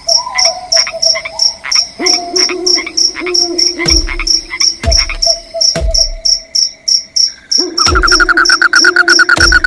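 Forest crickets chirping in a steady high pulse, about four chirps a second, with held lower calls breaking in and a few low thumps. A faster, denser chirping chorus joins about eight seconds in.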